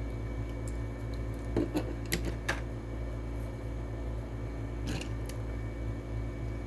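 A few light clicks and taps as a small die-cast toy car is handled and set down, a cluster about two seconds in and another near five seconds, over a steady low hum.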